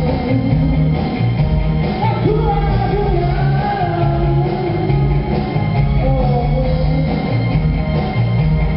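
A band playing rock music live on stage with a voice singing a melody over a steady bass and drum beat.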